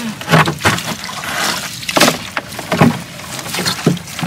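A collapsible net fish trap being emptied into a plastic boat: irregular knocks and slaps as the trap's frame and the catch hit the hull, over the rustle of wet netting.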